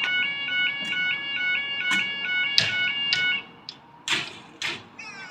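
British level crossing audible alarm sounding its two-tone warble, switching rapidly between pitches. It cuts off about three and a half seconds in, and two sharp knocks follow.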